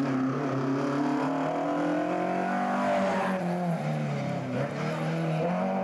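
Rally car engine revving hard through a corner. The pitch dips and rises with lifts and gear changes, then climbs steadily as the car accelerates away near the end.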